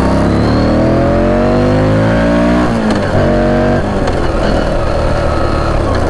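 Moto Guzzi V85 TT's air-cooled 853 cc transverse V-twin accelerating hard, its exhaust note rising in pitch, then dropping sharply at an upshift a little under three seconds in. The pitch changes again near four seconds in, after which the engine runs steadier at speed.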